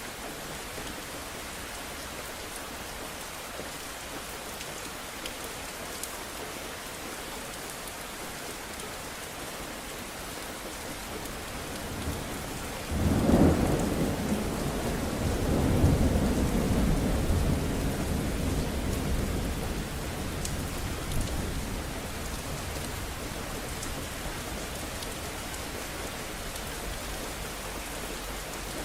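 Steady rain falling throughout, with a thunderclap about halfway through that breaks sharply and then rolls as a low rumble for several seconds before fading back under the rain.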